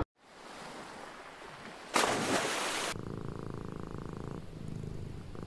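A domestic cat purring steadily from about three seconds in. Before it, a faint hiss and a loud rush of noise lasting about a second.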